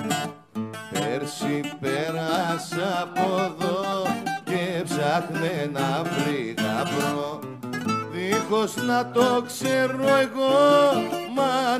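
A bouzouki and an acoustic guitar playing a Greek song together, with a man singing over them from about a second and a half in.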